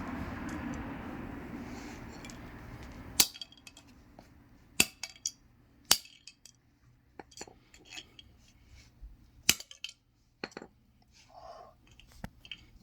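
A fading hiss that cuts off about three seconds in, then scattered sharp metallic clicks and clinks from a hammer and die-cast toy car pieces, with four louder knocks among them.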